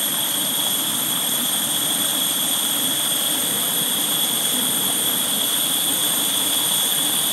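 Optimus Vega canister stove burning with a loud, steady rushing hiss, with a few steady high tones in it. The canister is upright, so the stove is burning gas in its econo mode.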